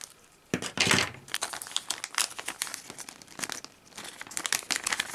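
Scissors cutting open a thin plastic bag about half a second in, then the bag crinkling and rustling as the rubber drive belts and idler tyres are tipped out of it.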